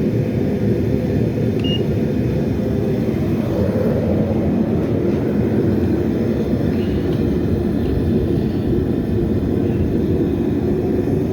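Burner of a Devil Forge melting furnace running with a steady, even roar while the loaded crucible heats up. A short faint beep sounds about two seconds in.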